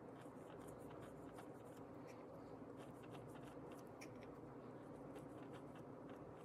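Faint scratchy rubbing of a gloved fingertip working coloured cocoa butter around the cavities of a clear plastic chocolate mold: a stream of small irregular ticks over a steady low room hum.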